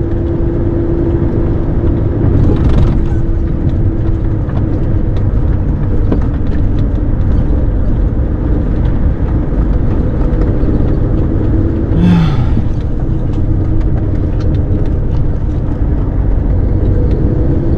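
Heavy truck driving, heard from inside the cab: a steady low engine and road rumble with a constant engine hum. About twelve seconds in there is one brief short noise.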